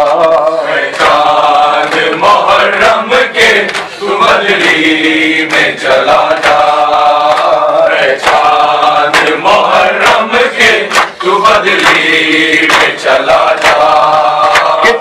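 Noha, a Shia Urdu mourning lament, sung by men with a steady beat of hands slapping chests (matam) in time with it.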